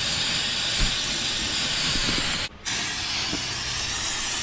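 Aerosol can of insecticide spraying in two long sprays, with a short break about two and a half seconds in.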